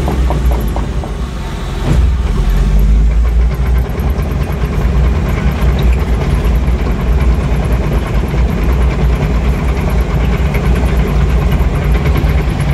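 Caterpillar D4H crawler dozer's diesel engine running loud and hard, heard from inside the cab while push-loading a scraper. There is a thump about two seconds in, after which the engine gets louder.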